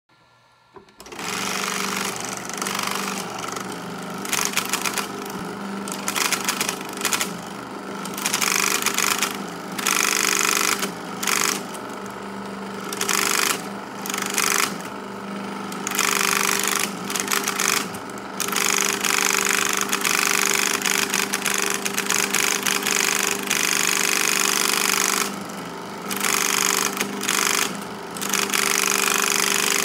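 Film projector running: a steady mechanical clatter with a hum underneath, starting about a second in and swelling and dipping every second or two.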